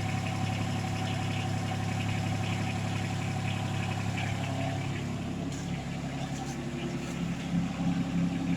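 Excavator's diesel engine running steadily while the joystick works the arm, its note shifting under changing hydraulic load about halfway through.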